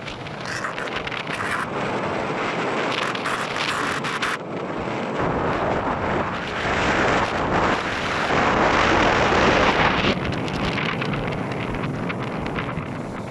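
Ocean waves surging and washing, with wind buffeting the microphone. The wash builds to its loudest about eight to nine seconds in, then eases.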